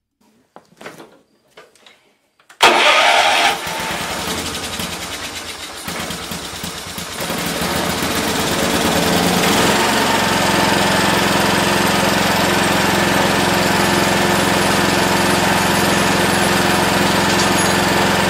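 Kohler Magnum 12 single-cylinder engine on a Wheel Horse garden tractor starting on the key: the starter engages suddenly about three seconds in and the engine catches within about a second. It then runs, picks up speed around nine to ten seconds in and settles into a steady run, now starting after a corroded key switch was cleaned and the starter solenoid replaced.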